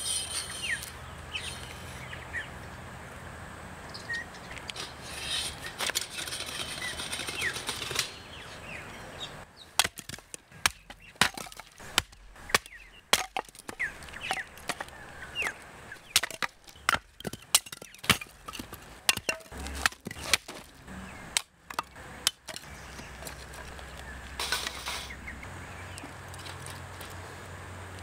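Birds chirping, then a quick, irregular run of sharp knocks and clicks for about twelve seconds from around ten seconds in.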